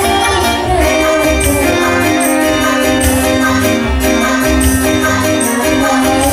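Women singing live into microphones over amplified stage music, with a steady percussion beat.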